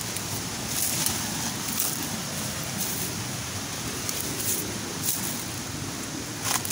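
Footsteps crunching and rustling through dry leaf litter and undergrowth on a steep forest trail, a crackle every second or so, the loudest one near the end, over a steady rushing noise.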